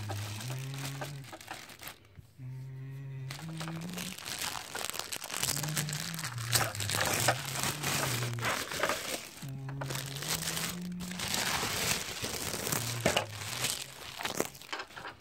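Packaging being handled, crinkling and rustling in loud stretches from about five to nine seconds in and again near the end, over background music with a slow melody of held low notes.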